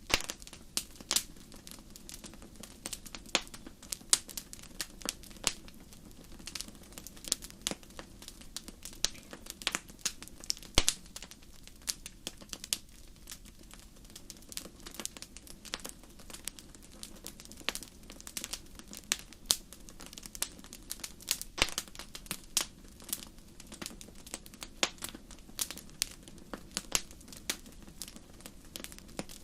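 Wood fire crackling in a fireplace: irregular sharp pops and snaps, several a second, over a soft steady hiss of the burning.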